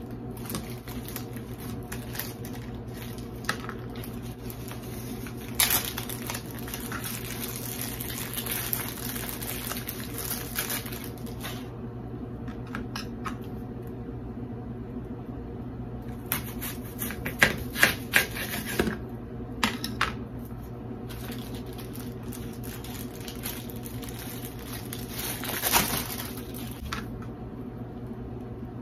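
A whole onion being cut with a kitchen knife on a glass cutting board and its dry skin peeled off: stretches of rustling and scraping, and a few sharp knife taps on the glass about two thirds of the way through, over a steady low hum.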